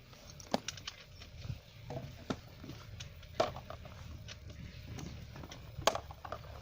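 Scattered sharp clicks and knocks at an irregular pace over a low rumble. The louder ones fall about half a second, two and a half, three and a half and six seconds in.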